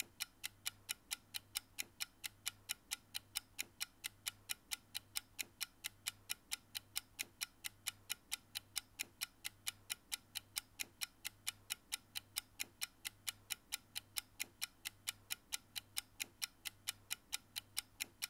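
Quiet clock-ticking countdown sound effect timing the answer period: steady, even ticks at about four a second over a faint, pulsing low hum.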